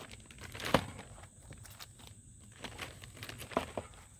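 Plastic bags rustling and crinkling as packed rifle accessories are handled, with a sharp knock about three-quarters of a second in and a few lighter taps later.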